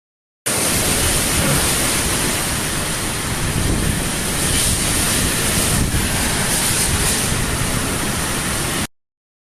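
Typhoon storm noise: a steady, dense rush of wind and rain. It cuts in about half a second in and stops abruptly near the end.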